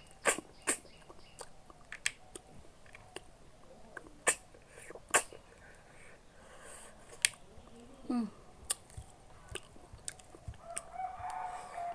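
Close-miked eating: crunchy bites and chewing, heard as sharp, irregular clicks and crackles.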